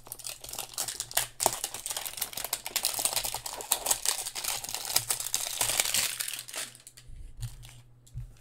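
Plastic wrapping on trading-card packaging crinkling and crackling in the hands as packs are handled and unwrapped, a dense crackle for most of the time that thins out after about six and a half seconds, followed by a couple of soft knocks near the end.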